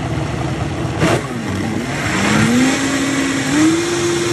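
High-speed countertop blender switched on and running loud, churning a liquid mix of cooked egg whites and coconut milk. Its motor whine climbs in pitch in two steps, the second about three and a half seconds in, as it comes up to speed, then holds steady.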